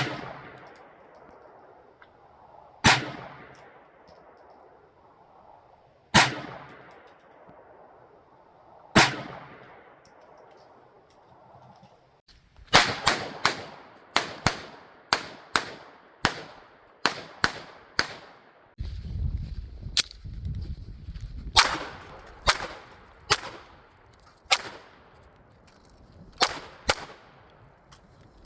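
A .22 LR pocket pistol, the Ruger LCP II Lite Rack, firing sharp cracks that each ring briefly. First come four single shots about three seconds apart, then a quick string of shots about two a second, then several more spaced shots near the end. A low rumble runs for a couple of seconds in the middle.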